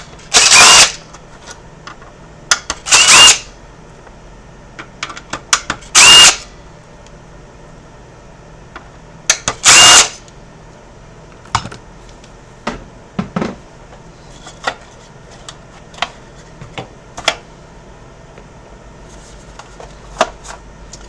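Small cordless impact driver running in four short bursts of under a second, each with a brief rising whine, as screws are backed out to free the console's main board. Small clicks and taps of handling follow.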